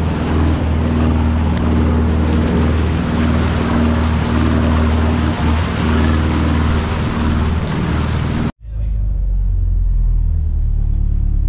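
Fishing boat under way: its engine runs steadily beneath a loud rush of churning wake water and wind. About three seconds before the end the sound cuts abruptly to the engine droning inside the wheelhouse, with the water noise much quieter.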